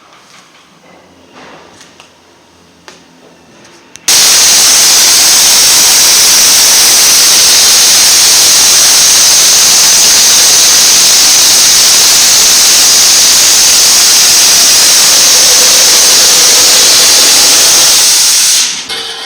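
Cotton-spray (pulp insulation) spraying machine blowing material out through its hose and nozzle: a loud, steady hiss of air that starts suddenly about four seconds in and cuts off shortly before the end. A few faint knocks come before it starts.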